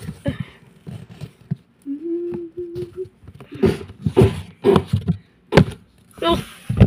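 Plastic toy figures being handled close to the phone's microphone: a run of light knocks and clicks. A short hummed tone about two seconds in and a few brief vocal noises from a child voicing the toys.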